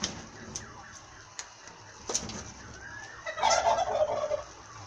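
Domestic fowl calling: one loud, rapid warbling call lasting about a second, starting about three seconds in. A few faint knocks from a wooden spoon stirring in a metal pot come before it.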